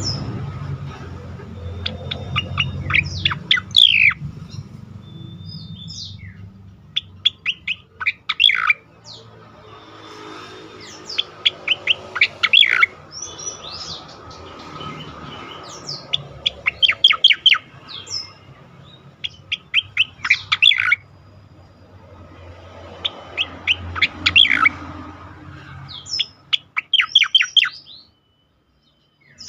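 Pied triller (cucak koreng) singing loudly in repeated bursts of rapid, sharply falling whistled notes, with short pauses between the bursts. A low steady hum runs underneath.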